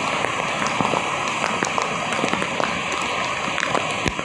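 Steady rain falling, with many sharp drop ticks close by.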